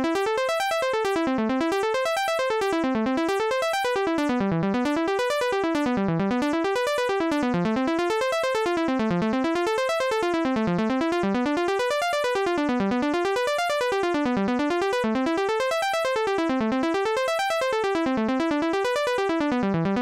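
Retro Synth software synthesizer driven by Logic Pro's Arpeggiator. It plays an even, unbroken run of notes that climbs and falls about once every second and a half, stepping through a latched chord progression of A minor 7, E minor 7, F major 7 and G7.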